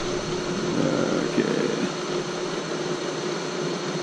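Vertical milling machine's spindle motor running with a steady hum.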